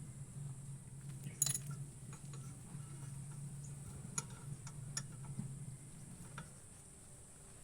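A few sharp, irregular metallic clicks and clinks, a quick cluster about a second and a half in, then single ones: the rattle of a loose brake caliper bolt pin. A steady low hum runs underneath.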